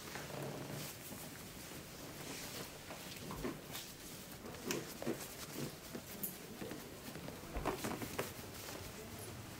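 Scattered light taps, pats and shirt-fabric rustling from hands working over a seated man's shoulders and arms during a barbershop massage, a few taps louder than the rest.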